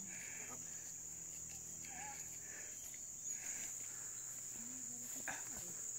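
Steady, high-pitched drone of insects in tropical forest, with faint distant calls or voices under it and one short sharp tap about five seconds in.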